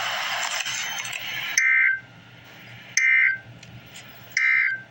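A burst of hiss-like noise, then the Emergency Alert System end-of-message code. The code comes as three short, buzzy two-tone data bursts a little under a second and a half apart, and it signals that the alert is over.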